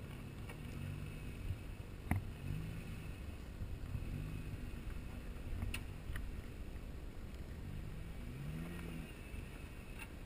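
Jeep Wrangler JK engine running at low revs while crawling over rocks, with several short throttle blips that rise in pitch. Two sharp knocks, about two seconds in and near six seconds, stand out.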